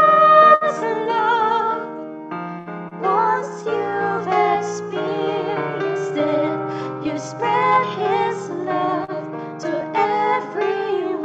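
A woman and a girl singing a Christian song together over piano accompaniment.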